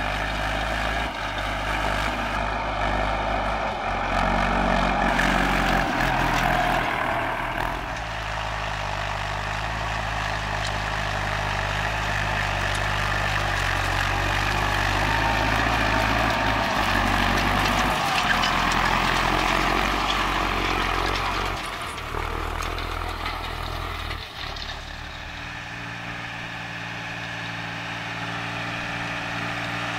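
Fendt tractor diesel engines running under load while pulling cultivators through a field. It is a steady engine drone whose note and loudness change abruptly several times as one clip gives way to the next.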